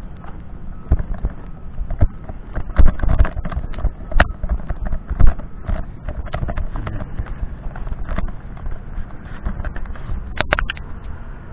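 Irregular thumps and knocks of movement and handling noise on a handheld camera's microphone, with a couple of sharper clicks about four seconds in and again near the end.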